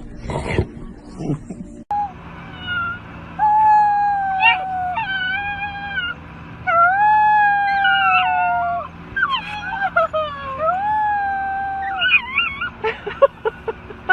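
A dog howling: a series of long drawn-out howls, each held for a second or two and sagging slightly in pitch, breaking into shorter yelping calls near the end.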